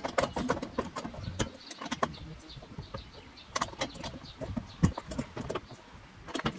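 Irregular metallic clicks and clinks of a 10 mm wrench working on the bolts and mounting hardware of a metal molle panel as it is tightened in place. The sharpest knock comes about five seconds in.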